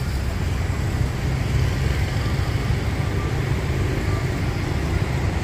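Steady road traffic noise from a busy city street at night, a continuous low rumble of passing vehicles.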